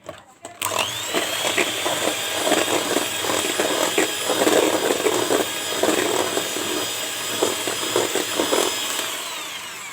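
Electric kitchen mixer mixing a wet batter of eggs, sugar and milk in a bowl. The motor whines up to speed about half a second in, runs steadily with an uneven clatter underneath, and winds down near the end.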